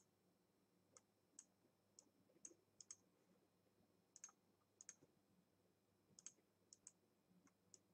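Faint computer mouse clicks, a dozen or so at irregular intervals, some in quick pairs, as pen-tool points are placed and dragged.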